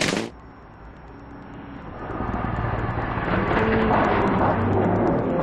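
Mitsubishi Lancer Evolution rally car's engine at high revs, growing louder over a couple of seconds as the car approaches, its pitch shifting as the driver works the throttle and gears. The level drops suddenly just after the start, before the car is heard building up.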